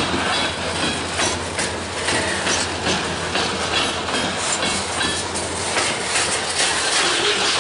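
Freight train of covered hopper cars rolling past, the wheels clacking irregularly over the rail joints over a steady rumble and rattle.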